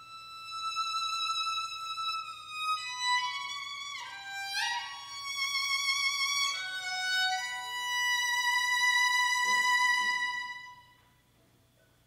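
Solo violin playing slow, high held notes, sliding down and back up in pitch about four seconds in, then holding one long note that stops about eleven seconds in.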